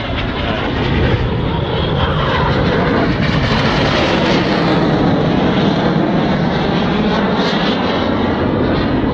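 Red Arrows BAE Hawk jets flying the display, their Adour turbofans giving a loud, steady jet roar that swells slightly in the first second and then holds.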